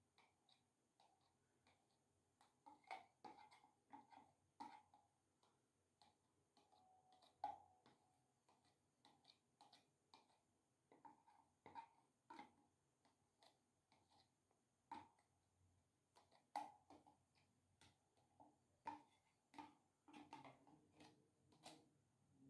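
Faint, irregular clicks and taps of a metal spoon against a plastic tub as microworm starter culture is scraped out onto bread.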